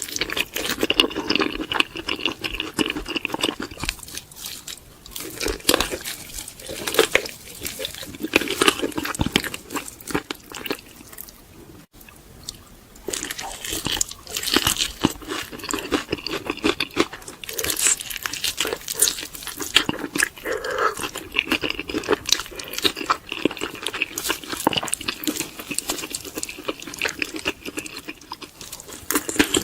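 Close-up crunching and chewing of crispy fried chicken: repeated bites into the crust and chewing in quick irregular succession, with a quieter stretch around twelve seconds in.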